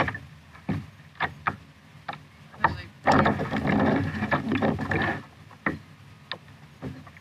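Handling noises on a plastic sit-on-top kayak while a spotted bay bass is unhooked: scattered knocks and taps against the hull, with a louder rustling, rattling stretch in the middle as the fish moves about on the deck.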